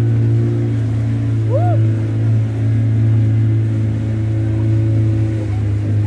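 Motorboat engine running steadily at a constant speed, a low even drone. A short rising-and-falling whistle-like call sounds over it about a second and a half in.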